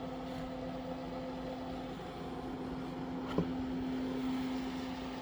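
Outback Power inverter running with a steady hum and fan noise. A single click or knock comes about three and a half seconds in, and the hum is slightly louder after it.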